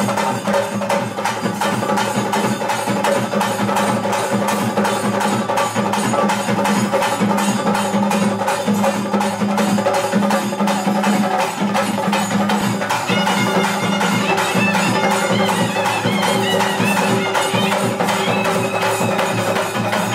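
Traditional bhuta kola ritual music: fast, steady drumming with a reed pipe playing over a held drone. From about 13 seconds in, a wavering high melody line comes in above it.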